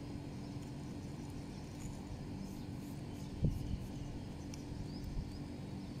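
A steady low machine hum, with a single sharp knock about three and a half seconds in.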